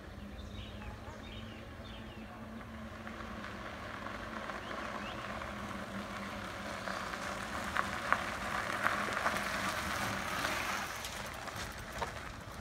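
Electric bike's fat tyres crunching over a gravel and dirt lane as the bike rides up and passes close by, growing louder to a peak about nine to ten seconds in with a few sharp clicks, then fading as it moves away.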